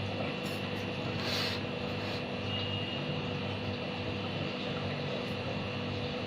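Steady low hum and hiss of background kitchen noise, with a few short rustling or scraping noises in the first couple of seconds.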